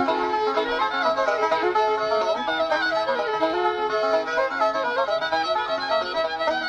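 Background music: a fiddle playing a tune of quickly changing notes over string accompaniment.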